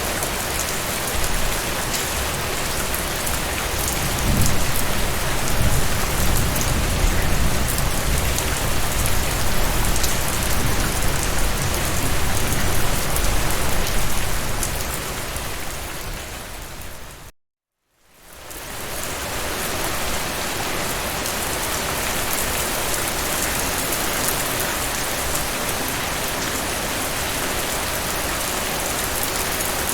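Steady heavy rain falling, with a low rumble underneath for several seconds in the first half. Just past halfway the rain fades out to a moment of silence and fades back in.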